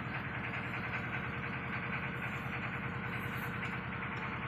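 Steady, even running noise of an engine or machinery in the background, with no separate knocks or strikes.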